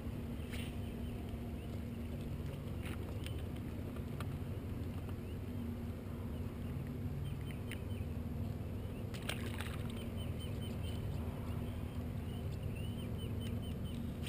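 Steady low hum, with scattered sharp clicks and knocks from fishing tackle being handled: the rod and a spinner lure worked in the hands. Quick light ticks come in short runs, once around the middle and again near the end.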